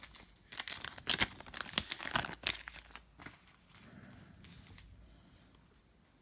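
Donruss Optic basketball cards being flicked through by hand and set down on a tabletop: a quick run of crisp rustles and snaps for about the first three seconds, then only a few faint ones.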